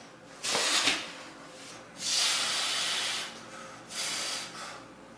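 A person breathing out hard through the mouth during a spinal adjustment: a short breath near the start, a longer, louder one about two seconds in, and a shorter one near the end.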